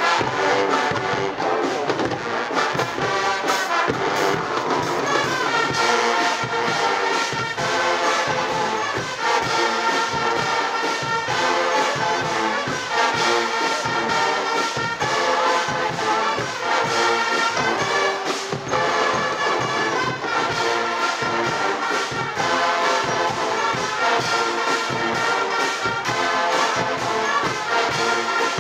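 Guggenmusik carnival band playing a brass tune: trumpets, trombones and sousaphones over a steady drum beat with cymbals.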